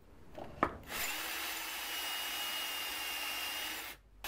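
Ryobi 18 V cordless drill drilling screw holes into a metal plate. It starts up with a quickly rising whine, runs steadily, and stops briefly near the end.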